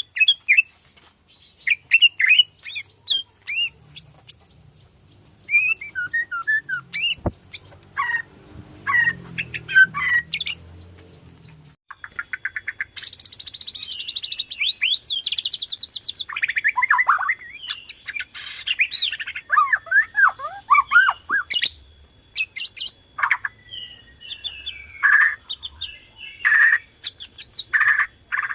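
Bornean white-rumped shama (murai batu) in full song: loud, varied phrases of clear whistles, rapid trills and harsh chattering notes, with a short break about twelve seconds in.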